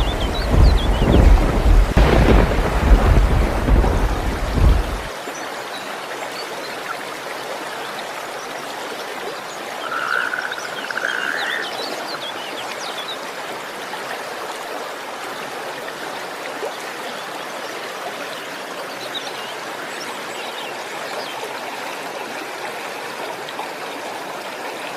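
Thunder rumbling loudly over steady rain, cutting off suddenly about five seconds in. Steady rain follows, with frogs croaking, one louder call about ten seconds in.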